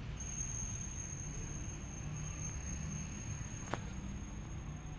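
A cricket trilling in one steady, high-pitched unbroken tone over a low background rumble, with a single sharp click about three-quarters of the way through.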